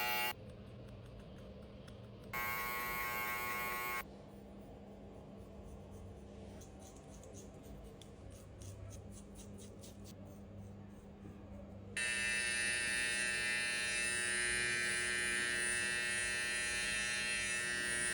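Electric hair clipper buzzing steadily while cutting a fade, switched on and off: briefly at the start, again for about two seconds, and then for the last six seconds. In the quieter stretch between, there are faint clicks.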